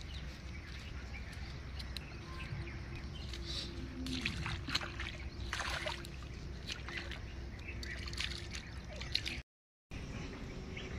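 Water sloshing and splashing in short bursts as a freshly caught fish is put into the water, over a steady low outdoor rumble. The sound drops out for a moment near the end.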